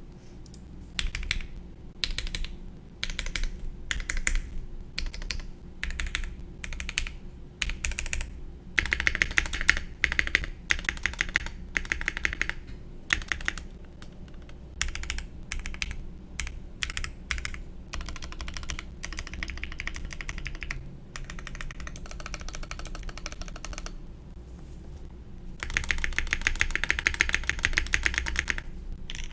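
Custom mechanical keyboard being typed on: a Duck Unicorn X Legend with a stainless steel plate, NovelKeys Dry linear switches lubed with 205g0, and GMK Mizu keycaps. It starts with separate key presses about a second apart, then bursts of fast typing, the fastest and loudest run near the end.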